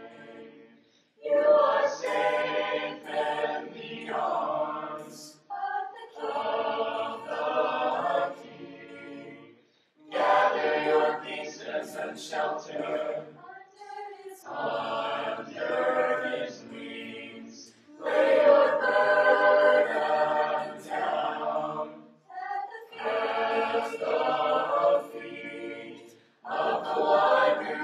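Choir singing a religious song a cappella, in sung phrases of a few seconds each with short breaks for breath between them.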